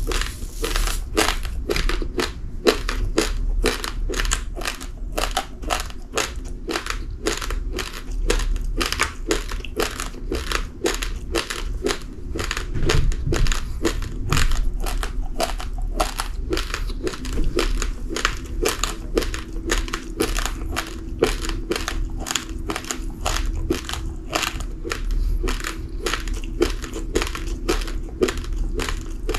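A person chewing uncooked rice grains: a steady run of sharp, close crunches, several a second.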